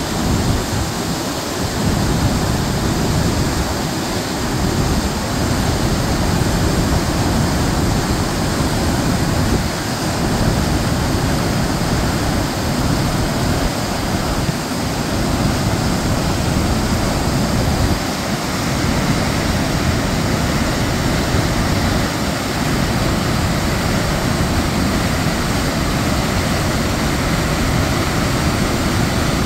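Large waterfall in spate, swollen brown water pouring over granite into a gorge: a steady, loud, deep rush of falling water.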